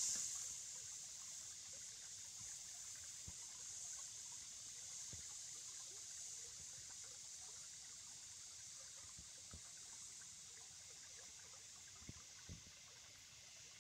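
Shallow creek water trickling over gravel, a faint, steady high hiss, with a few soft low thumps near the end.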